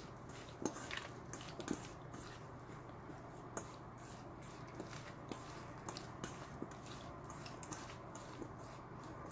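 Cubed Korean radish being tossed by hand with chili flakes in a stainless steel bowl for kkakdugi: faint, irregular wet clicks and squishes of the cubes rubbing and knocking together and against the metal, a few sharper ones in the first couple of seconds.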